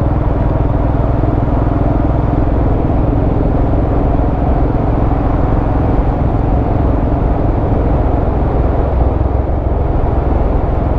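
Motorcycle cruising at a steady speed: the engine runs evenly under a constant rush of wind and road noise, with a faint steady hum and no changes in pace.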